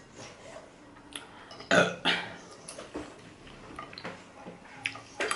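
A woman burps briefly about two seconds in, with a few light clicks of a metal fork against a plate around it.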